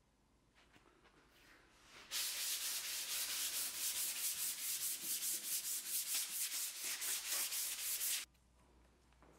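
Hand sanding a wooden desk top with a Mirka Goldflex Soft P180 foam-backed sanding pad: quick back-and-forth strokes, about five a second. The sanding starts about two seconds in and stops suddenly about a second before the end.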